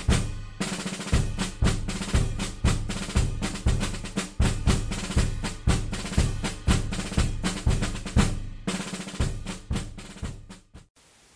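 Percussion-driven music with regular drum hits and snare rolls, dying away and cutting off near the end, leaving a faint hiss.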